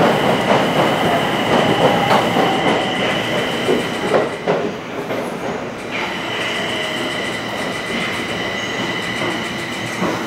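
Yokohama Municipal Subway Blue Line 4000 series electric train heard from inside the car as it runs into its terminal stop: steady rumble of wheels on rail with a few sharp clacks over joints, and a steady high-pitched whine that drops out about four seconds in and returns about two seconds later. The running sound grows gradually quieter as the train slows.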